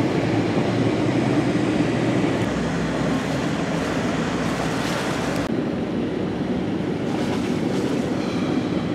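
Steady rush of wind and water with a low engine drone, heard from aboard a sailboat motoring along. The hissy part thins out about five and a half seconds in.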